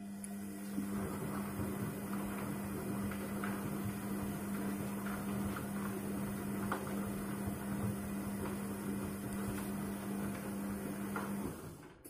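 Front-loading washing machine tumbling a wet, sudsy load, with the drum motor humming steadily over the wash noise and a few faint clicks. The motor stops near the end.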